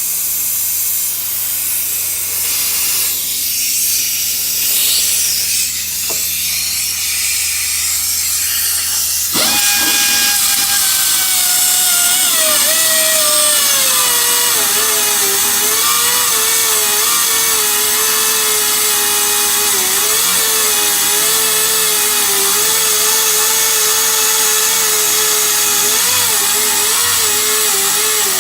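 Pneumatic air cutter grinding through a hardened steel sway bar end-link bolt. It starts as a hissing grind; about nine seconds in a strong whine sets in, drops in pitch over several seconds as the tool loads up, then holds wavering to the end.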